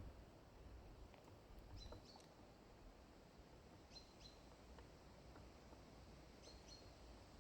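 Faint high bird chirps in quick pairs, three times, over a low outdoor background rumble.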